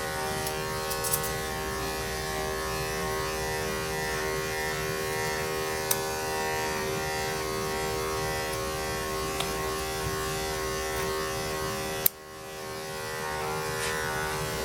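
Electric pet grooming clippers running with a steady motor hum while trimming the dog's face. There are a few faint ticks, and a sharp click about twelve seconds in, after which the sound drops briefly and then comes back up.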